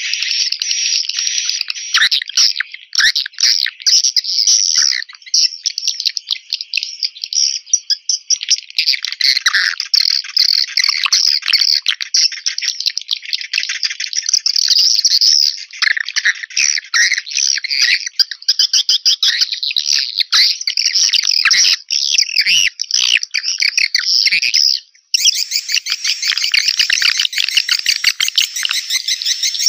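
Swiftlet call recording, the kind played to lure swiftlets into a nesting house: dense, rapid high twittering chirps from many birds. About 25 seconds in it breaks off for a moment, then resumes denser and brighter.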